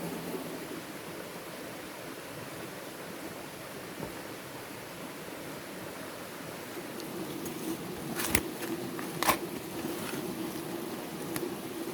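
Steady outdoor background hiss with two sharp knocks about a second apart near the end, with a few fainter ticks around them.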